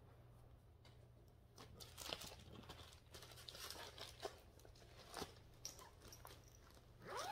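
Faint rustling, crinkling and light taps of paper and plastic being handled, as cross-stitch patterns and project bags are sorted, with a short rising squeak near the end.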